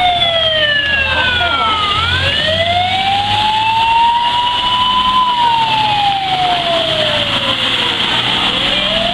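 Fire truck siren on a slow wail, its pitch falling, rising over about three seconds, falling again and starting to rise near the end. Under it are the low rumble of the truck's engine and a steady hiss of water splashing as the truck drives through floodwater.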